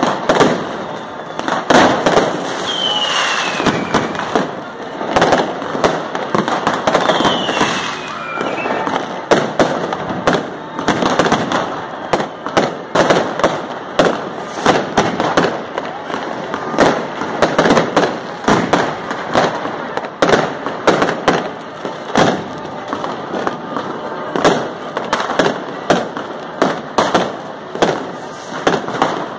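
Fireworks and firecrackers going off continuously, several sharp bangs and crackles a second with no let-up. Twice in the first several seconds a short falling whistle cuts through the bangs.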